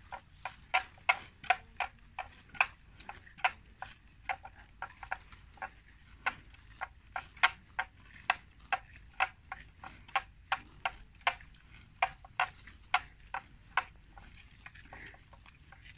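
Buffalo grazing, tearing and chewing plants: an irregular run of crisp clicks and crunches, two or three a second, that thins out near the end.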